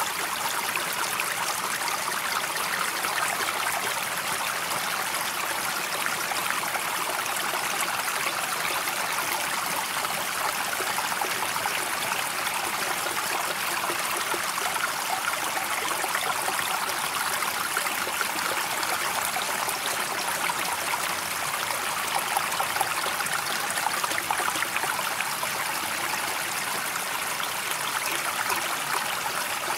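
Running water with a steady, even rush that holds level without surges.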